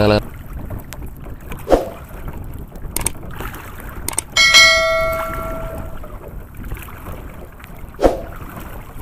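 Wind and water noise over an open boat, with a subscribe-button sound effect about four seconds in: two clicks, then a ringing bell ding that fades over about a second and a half. Short swooshes come about two seconds in and near the end.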